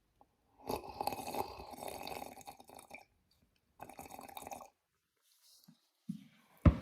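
Slurping sips of water taken from the far side of a cup, in one long pull and then a shorter one. A sharp knock near the end.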